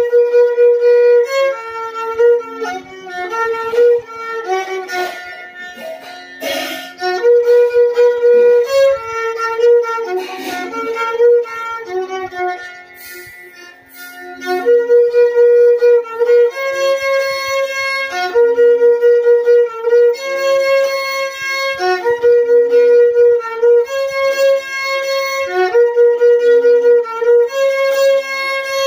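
Solo violin, played in the Indian seated style, bowing a slow melody in long sustained notes. About halfway through it falls to a soft passage, then picks up again with a phrase of long held notes repeated several times.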